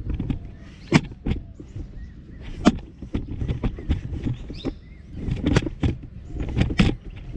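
Footsteps crunching and scuffing on dry, stony ground and twigs at an uneven pace, with a few louder crunches, over a low steady rumble.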